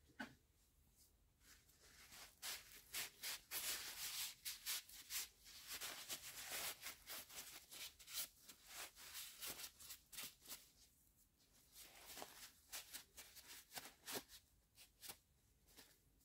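A rag wiping over a screwdriver's wooden handle and steel shaft: a quick run of faint rubbing strokes, easing off briefly about two-thirds of the way through.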